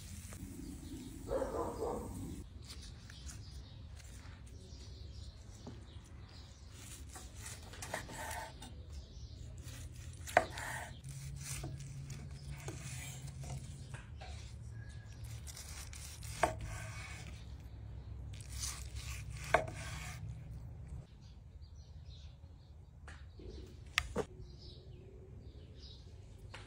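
Knife cutting grilled strip steak on a wooden cutting board: soft scraping and clicking with a few sharp knocks against the board, over a low steady hum.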